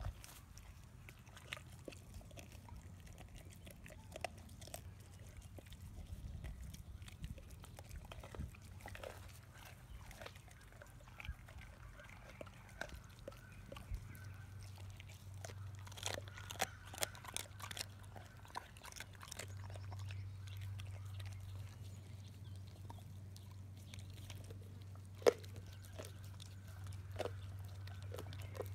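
Boxer-mix dogs chewing raw salmon heads: wet biting and chewing, broken by irregular crunches and cracks as bone and cartilage give way, with one sharp crack near the end.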